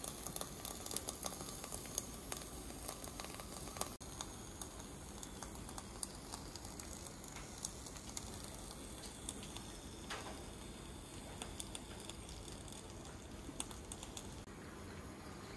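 Food sizzling and crackling on a leaf over a small tabletop grill's flame, with quick pops that thin out after about four seconds.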